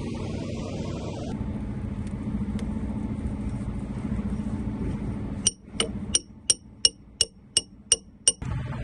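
An engine running steadily, then about two-thirds of the way in, nine sharp, evenly spaced ringing clicks, about three a second.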